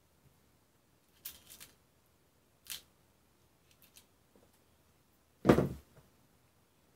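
Small hardware clicks and rattles as tweezers pick through a clear plastic screw organizer, then one louder knock about five and a half seconds in as something is set down on the workbench.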